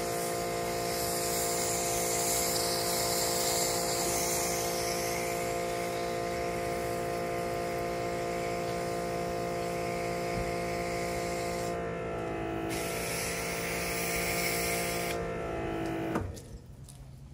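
Giraffe Tools electric pressure washer motor running with a steady whine while foam hisses out of a foam cannon. The pitch sags briefly twice, and the motor shuts off with a click about sixteen seconds in.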